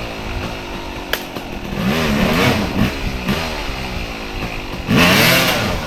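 Enduro dirt bike engine revving in repeated bursts, its pitch rising and falling several times, loudest about five seconds in, as the bike is pushed up a rocky climb.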